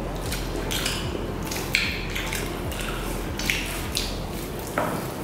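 Close-up eating sounds: fingers mixing rice with chicken curry and mouths chewing and smacking, a string of short, irregular wet clicks and squelches over a steady low hum.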